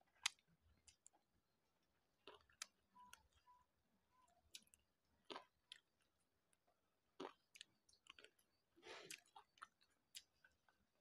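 Faint mouth sounds of people chewing boiled fish and rice: scattered small clicks and smacks at irregular intervals.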